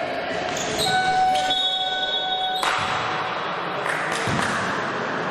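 Basketball bouncing on an indoor court in a reverberant hall during a game. A steady high-pitched tone, like a long squeak, sounds for about a second a little after the first second.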